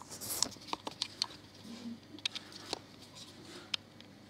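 Handling noise: scattered light clicks, taps and rustles, a few sharper ticks among them.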